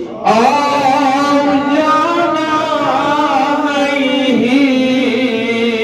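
A man's voice chanting one long, held melodic phrase, its pitch wavering slowly: Islamic devotional chanting.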